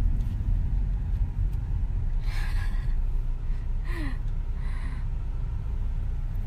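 Steady low rumble of a moving car heard from inside the cabin, with three short breathy vocal sounds from a woman, a little laugh among them, about halfway through.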